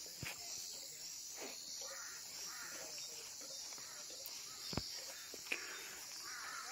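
Steady high-pitched insect chorus, with faint distant voices and a few light clicks underneath.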